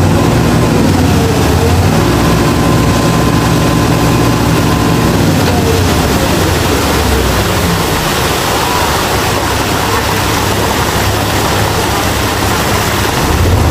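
Steady engine and road noise of a vehicle on the move.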